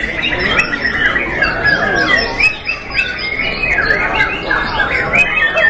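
Many young white-rumped shamas (murai batu) singing at once: a dense, unbroken chorus of quick whistled and chattering phrases.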